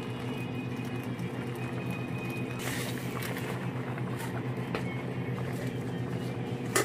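Steady low mechanical hum in a home kitchen; about two and a half seconds in, a brief rush of rustling and hiss as a pile of rayo saag (mustard greens) goes into the hot pot of pork, and a sharp knock near the end.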